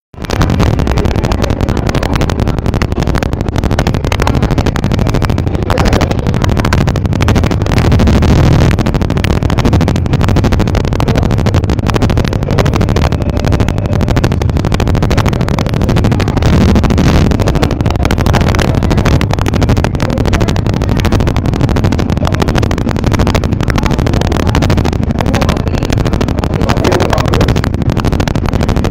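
Houseboat's engine running, a loud steady low rumble heard from inside the boat.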